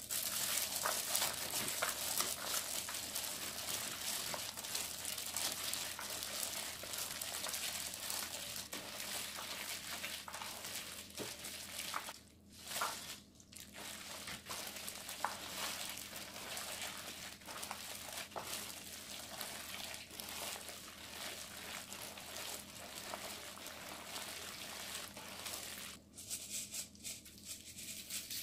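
Gloved hand mixing julienned radish and green onions through wet red chili kimchi seasoning in a plastic basin: a continuous, irregular wet rubbing and rustling. It drops away briefly about twelve seconds in.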